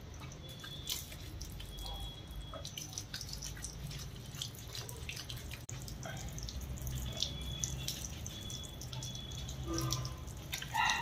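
Shampoo water dripping and splashing onto a wet concrete floor as it is poured and worked by hand into a dog's wet coat, in many small scattered drips and splashes.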